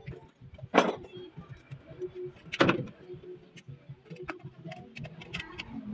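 Scattered clicks and light metallic knocks of hand tools and parts on a Fuso 8DC9 diesel engine as it is being taken apart, with two louder short noises, about a second in and a little before the three-second mark. The engine is not running.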